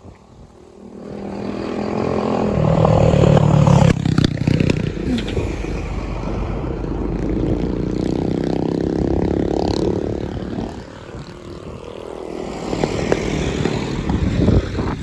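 Motor vehicles passing close by on the road: an engine grows loud over the first few seconds and runs on steadily before fading about ten seconds in, then another vehicle comes by near the end.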